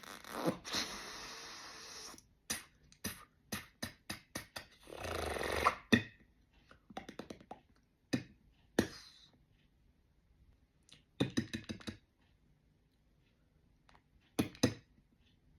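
Beatboxer imitating cartoon sound effects with the mouth: a string of sharp clicks and pops, a long hiss in the first two seconds, and a louder noisy burst about five seconds in, then quick clusters of pops with quiet gaps between.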